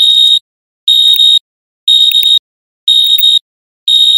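Timer alarm going off at zero: a loud, high-pitched electronic beep about half a second long, repeating once a second, five beeps in all.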